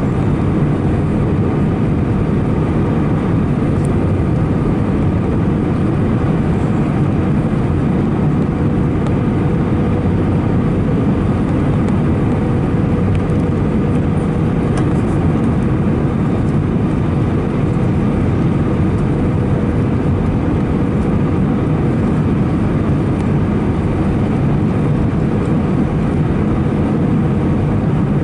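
Steady cabin roar inside an Airbus A319-111 airliner: its CFM56 jet engines and the airflow past the fuselage, with a faint steady whine.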